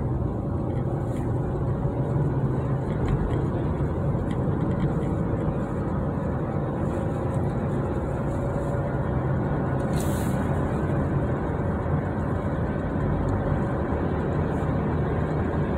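Steady road and engine noise inside a moving car's cabin, a low rumble with a faint hum, with a brief hiss about ten seconds in.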